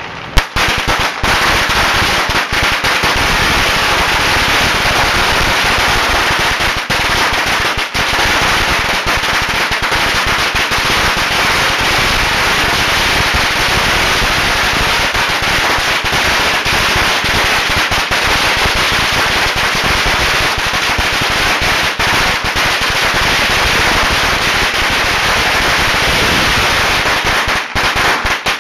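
A long string of firecrackers going off in rapid, unbroken succession: a few separate bangs right at the start, then a dense, continuous crackle of explosions at an even level.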